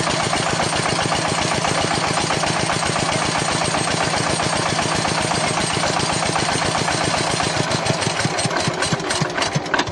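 Engine of a small water well drilling machine running steadily with a fast, even beat. Near the end it drops in level and turns uneven, with a few sharp knocks.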